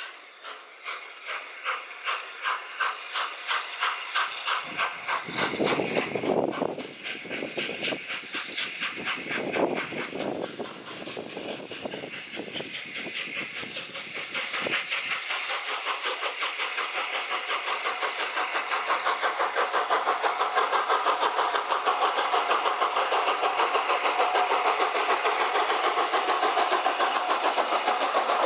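LNER Peppercorn A1 Pacific 60163 Tornado, a three-cylinder steam locomotive, pulling away from a station with its train: sharp exhaust beats that quicken steadily as it gathers speed, with two deeper rushes of noise about five and nine seconds in. The beats grow louder and closer together as the engine and its coaches come up and pass close by.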